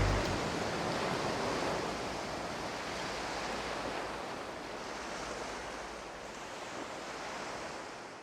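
Steady rushing noise of ocean surf that slowly fades and dies away near the end.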